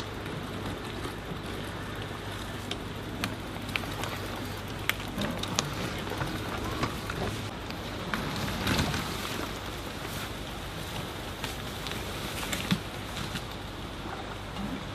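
Loaded fat-tyre e-bike and cargo trailer rolling over a dirt track and into long grass and undergrowth: crunching tyres and scattered crackles and snaps of twigs and stems, loudest as it passes close about nine seconds in.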